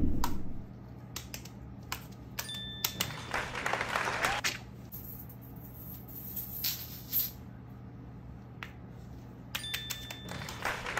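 Fidget toys being handled: scattered light clicks and taps, with a stretch of rustling about three to four seconds in.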